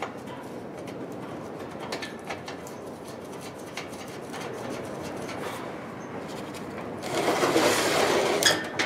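Handling noise as the kerosene heater's metal cabinet is lined up and refitted: scattered light clicks over a steady rustle, with a louder scraping rustle near the end that finishes in a sharp click.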